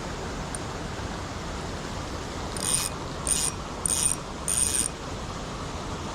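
Fishing reel wound in four short bursts of about a quarter second each, as when twitching a lure back, over the steady rush of the stream.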